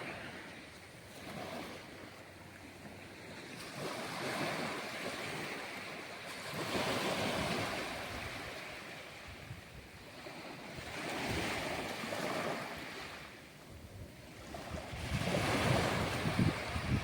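Sea waves washing and surging, swelling and fading about every four to five seconds, with wind blowing across the microphone.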